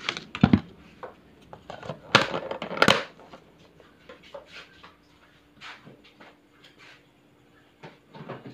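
Knocks and clatter of kitchen items being handled, loudest in the first three seconds, then a few quieter scattered knocks over a faint steady hum.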